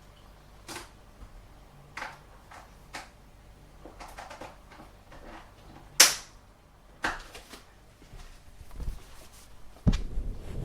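Scattered clicks and knocks from a microwave oven, the loudest a sharp click about six seconds in, with a low rumble starting near the end.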